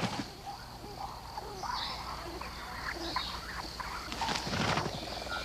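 Rainforest ambience: a steady high insect drone, with scattered faint bird chirps and small clicks.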